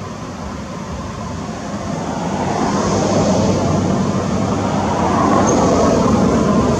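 A motor vehicle's engine running, growing steadily louder from about two seconds in, as if approaching.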